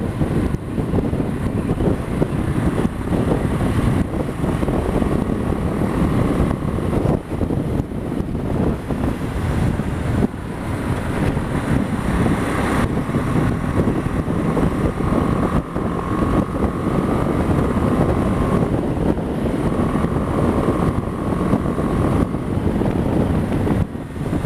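BMW G 310 GS single-cylinder motorcycle engine running on the move, under steady wind rush on the microphone. The engine note rises a little a couple of times as it pulls.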